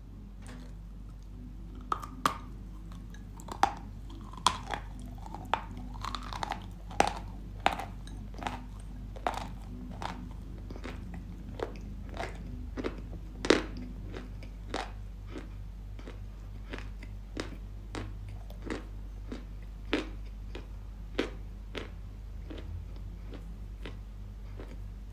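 Dry Yampol chalk with a paste being chewed close to the microphone: sharp, dry crunches about one or two a second, starting about two seconds in and thinning out near the end, over a steady low hum.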